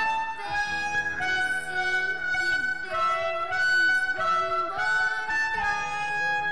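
Diatonic harmonica in A playing a melody of sustained single notes in the upper register, several of them bent so that they dip and slide in pitch.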